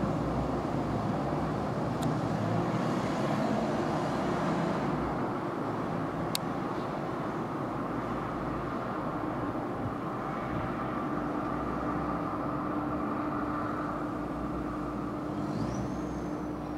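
Steady outdoor rumble of distant engine noise. Two sharp clicks about 2 and 6 seconds in, a low steady hum joining about two-thirds of the way through, and a short whistle that rises and then falls near the end.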